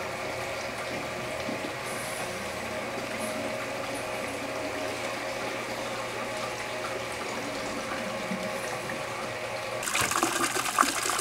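Hot spring water running and splashing into an open-air rock bath, a steady sound; about ten seconds in it turns suddenly louder and closer, as the hot water spills over the rocks of the inflow.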